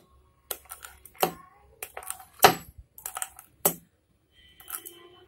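A metal pastry-cutting wheel clicks and taps against a wooden rolling board as it cuts through a thin sheet of rolled dough. There are about eight sharp, irregular clicks at roughly one every half second, and the loudest comes about halfway through.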